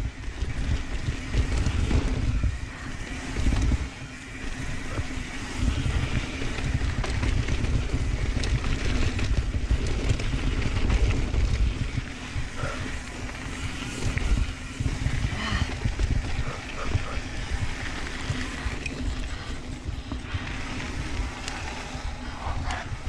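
Santa Cruz Tallboy mountain bike ridden fast down a dirt singletrack: wind buffeting the camera microphone over tyre and trail noise, an uneven low rumble that rises and falls.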